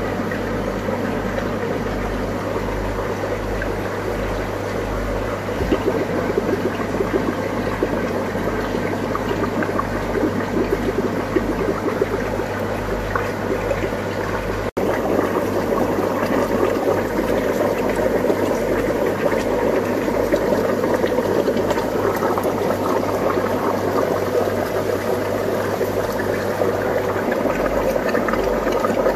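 Aquarium filtration and aeration bubbling and churning water, over a steady low hum. The sound gets a little louder about halfway through.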